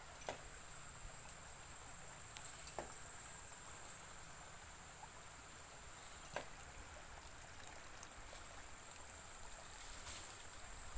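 Faint outdoor ambience: an even hiss with a thin, steady high-pitched tone, broken by three short sharp clicks, just after the start, near three seconds in, and past six seconds.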